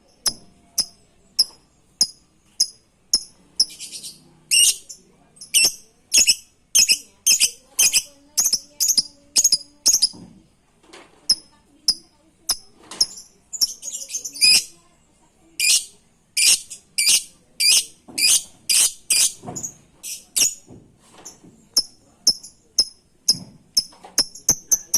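Lovebird giving shrill, short chirps, two or three a second, in runs broken by brief pauses: a lovebird lure call, played to set other lovebirds chirping.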